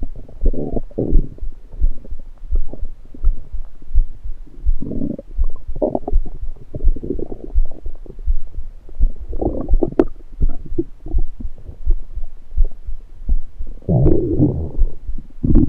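Human stomach gurgling after drinking soda: irregular bursts of gurgling and rumbling, with quieter stretches in between, over a steady low pulse.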